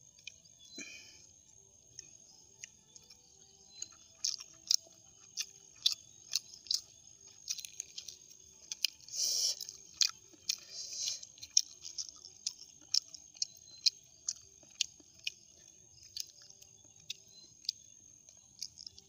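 Close-miked chewing of boiled suckermouth armored catfish, with many short, sharp wet clicks and smacks of the mouth and a few longer chewing stretches in the middle.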